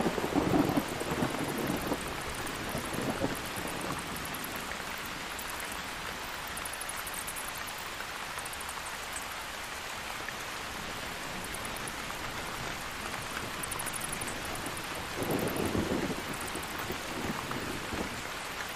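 Steady rain with rolling thunder: a rumble at the start that fades over the first few seconds, and another about fifteen seconds in.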